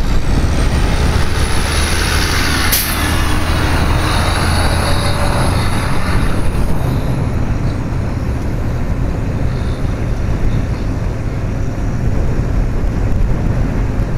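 Steady wind and road noise from a velomobile rolling along a highway shoulder, with the heavier low rumble of passing motor traffic during the first half.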